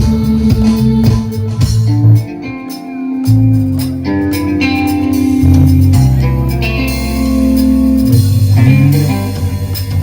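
Live band playing instrumental music at a sound check: a bass guitar holds low notes under keyboard and percussion. The bass drops out briefly about two seconds in, then comes back.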